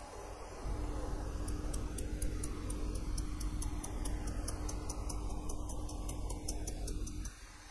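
A rubber mallet rapidly tapping a thin metal strip clamped in a bench vise, about six light, even taps a second, bending it into shape. A low steady hum starts about a second in and cuts off near the end.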